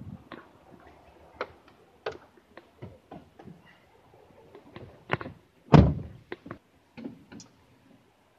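Scattered knocks, clicks and thunks from getting into a Mercedes-Benz Antos truck cab, with the loudest, heaviest thunk a little under six seconds in.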